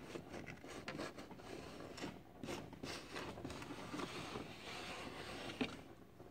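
Thin wooden patch plank scraping and rubbing against the canoe hull's planking as it is pressed and slid by hand for a test fit. The scraping is irregular, with small clicks, and ends with a light knock near the end.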